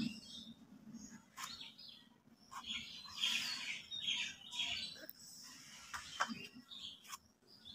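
Small birds chirping on and off in short high calls, with a few sharp clicks as eggplant is cut with a blade.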